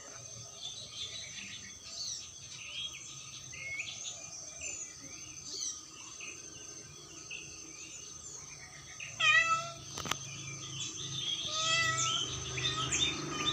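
A cat meowing twice, short calls about nine and twelve seconds in, over faint high chirping in the background.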